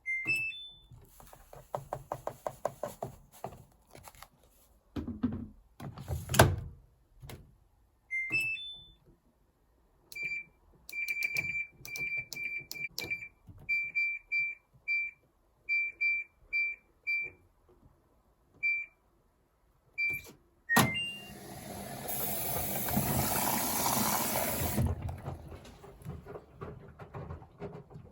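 Haier washer-dryer control panel: a short rising three-note chime as it powers on, clicks and knocks, another rising chime, then a string of short single beeps as the programme options are set. A third rising chime marks the start of the cycle, followed by a steady rushing hiss for about four seconds.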